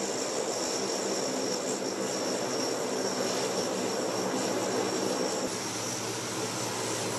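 C-130 Hercules turboprop engines running steadily: a loud propeller drone under a steady high-pitched turbine whine.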